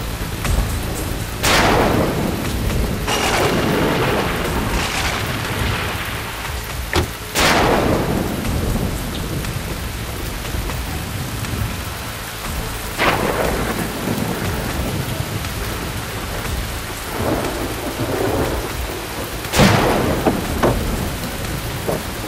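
Heavy rain pouring steadily, with several thunderclaps: sudden cracks that rumble away over a second or two, the strongest about seven seconds in and near the end.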